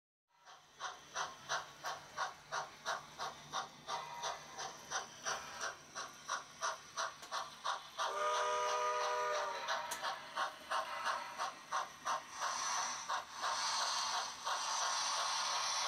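Model steam locomotive chuffing steadily, about three chuffs a second, as it runs. A short steam-whistle chord of several notes sounds about eight seconds in, and a steady hiss builds under the chuffs in the second half.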